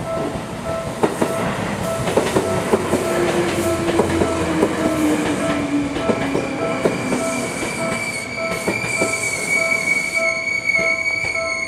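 A Japanese level-crossing warning bell rings a steady, rapid repeating ding while an electric train passes over the crossing. Wheels clack over the rail joints, the traction motor's whine falls in pitch as the train slows, and from about halfway a high, steady wheel squeal sets in.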